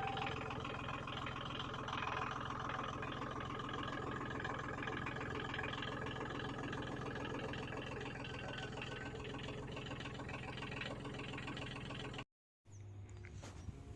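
Backhoe engine running steadily at a constant speed. It cuts off abruptly near the end.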